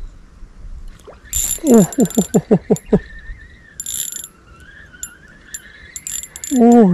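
A small spinning reel's drag clicking in buzzing bursts as a hooked fish pulls line off against the bent rod. About two seconds in, a quick run of loud, excited vocal calls.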